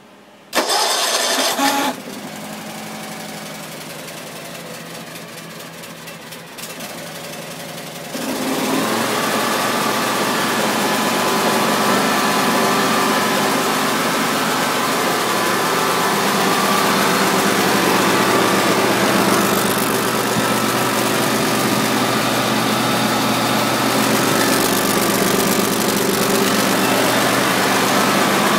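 Kawasaki FH541V 17 HP air-cooled V-twin engine cranked on its starter for about a second and a half, then catching and running at a low idle. About eight seconds in it speeds up to a steady, louder run.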